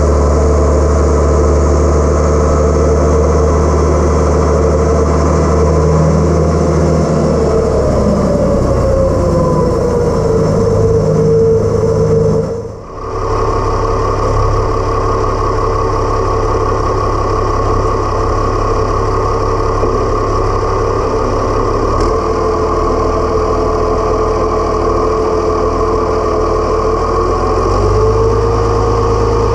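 International Harvester Farmall 1066 tractor's diesel engine running steadily while driving, heard close from the hood. Its pitch sags about a third of the way in, drops out briefly near the middle, and picks up slightly near the end.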